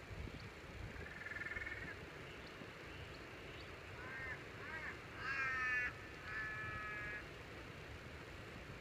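A crow cawing in a short series of harsh calls, the loudest just after five seconds in, over a low steady background rumble.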